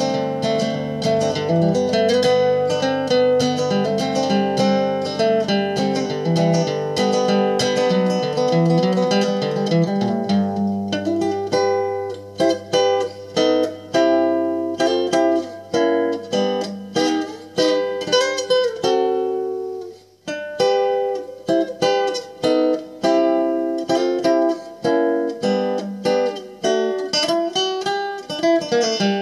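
Solo acoustic guitar played fingerstyle in a ragtime arrangement, with low bass notes held under a plucked melody. The playing breaks off very briefly about two-thirds of the way through, then carries on.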